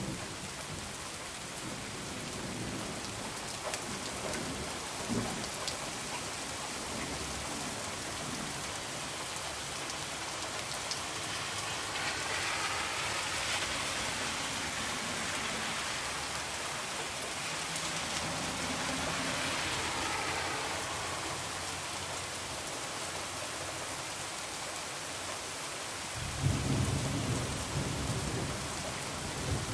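Heavy rain falling steadily, swelling louder for several seconds in the middle. Thunder rumbles low near the end.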